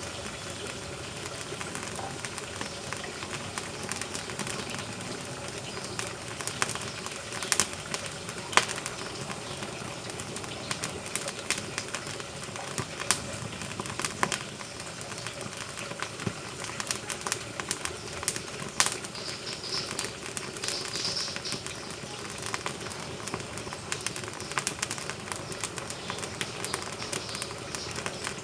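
Firewood burning in a wood-fired cooking stove, crackling steadily with frequent sharp pops and snaps at irregular intervals.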